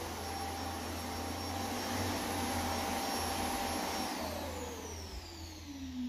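Roomba s9+ Clean Base automatically emptying the robot's dustbin: a steady rushing suction whir with a high whine. About four seconds in the motor winds down, its pitch falling as the sound fades.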